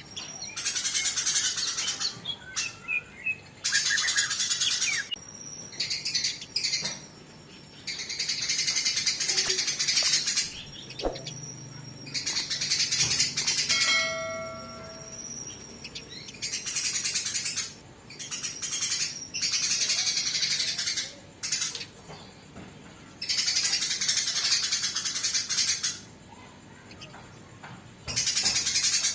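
Eurasian tree sparrows fighting: harsh, rapid chattering in repeated bursts of one to two seconds with short pauses between. About halfway through comes a single clear whistled note.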